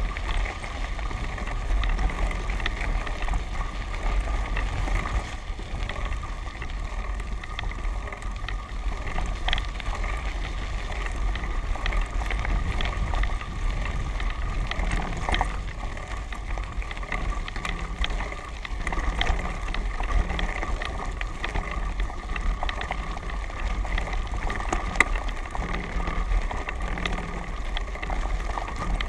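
Wind buffeting the microphone of a camera moving along a dirt and gravel track, over the steady rolling noise of tyres on the rough surface, with scattered clicks and rattles from bumps.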